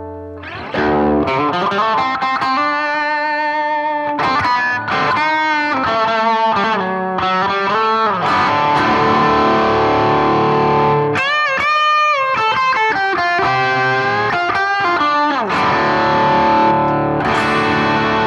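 Gibson Les Paul Special Tribute P90 electric guitar played through a BOSS GT-1000 X-Crunch amp model with a crunchy, distorted tone. It plays a run of picked notes and chords, with string bends and vibrato about eleven to thirteen seconds in, and ends on a ringing chord.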